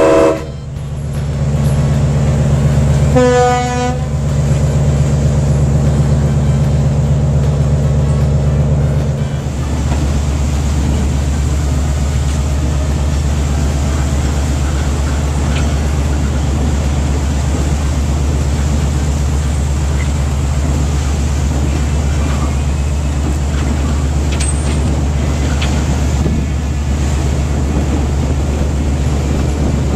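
A ship's horn blast ends just as the sound begins, and a shorter horn toot comes about three seconds in, both over the steady low drone of a vessel's engines. The drone shifts about nine seconds in, then runs on evenly.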